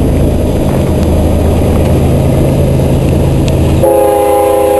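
A steady low rumble, then near the end a railroad locomotive's air horn starts sounding a held chord of several notes as the train approaches the grade crossing.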